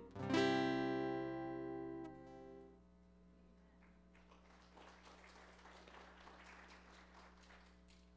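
Acoustic guitar ending a song: a final strummed chord about half a second in rings out and fades, then is damped short after about two and a half seconds.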